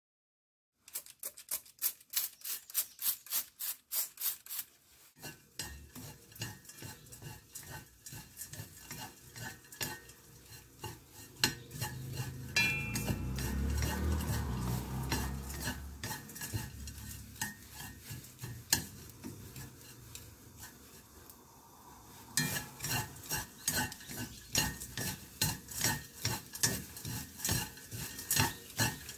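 Wooden chopsticks tossing dried anchovies in a nonstick pan: quick dry clicking and rattling of the small fish against the pan as they are stir-fried over low heat until crisp. The clicking starts about a second in, gives way to a softer hiss in the middle, and picks up again near the end.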